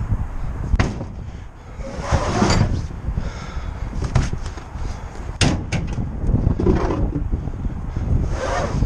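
Tools being handled and set down: a series of sharp knocks and clanks, with a couple of scraping sounds, over a low rumble.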